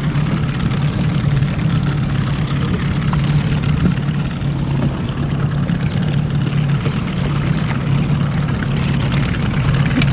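Small tiller outboard motor running steadily at trolling speed, an even low hum with water noise over it.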